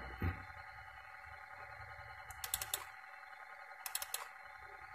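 Computer mouse clicking in two short quick clusters, about two and a half seconds in and again about four seconds in, as folders are selected and opened. A faint steady electronic hum runs underneath.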